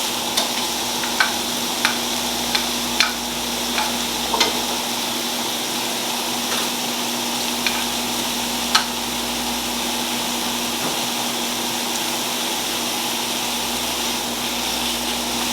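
Thinly sliced roast beef and scallions sizzling steadily in hot oil in skillets, with a few sharp clicks scattered through the first half.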